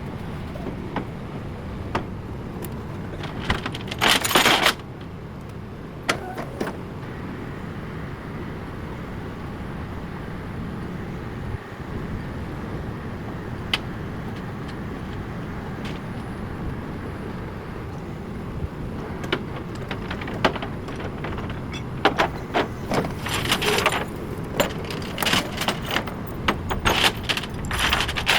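Vehicle engine running steadily, with sharp metallic clanks and rattles: a cluster about four seconds in, and many more over the last six seconds.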